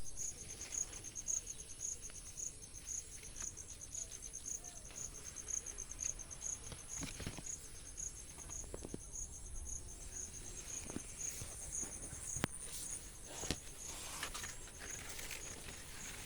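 An insect chirping steadily in a high, even pulse of about three chirps a second, with a thin continuous high-pitched buzz above it. Scattered faint clicks and rustles come and go.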